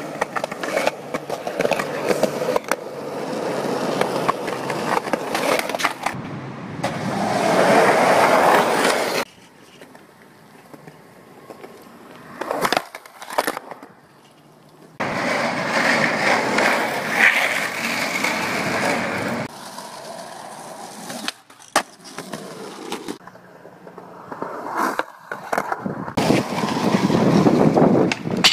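Skateboard wheels rolling over concrete sidewalk, a rough rumble that comes and goes in several runs, with a few sharp knocks in between.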